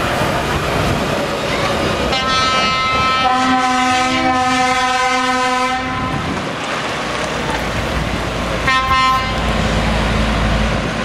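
Lorry air horns sounding as trucks drive past: a multi-note horn blows for about four seconds, changing chord partway through, and a second short blast comes near the end. Diesel truck engines and tyre noise run underneath, with a deep engine rumble growing louder in the second half as a heavy truck approaches.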